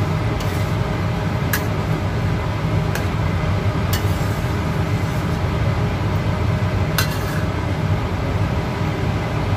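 Steady rushing noise of a stove flame on medium heat under a pot of coconut-milk stew at the boil. A few sharp clinks of the stirring spoon against the pot come through it as the stew is stirred so the coconut milk does not split.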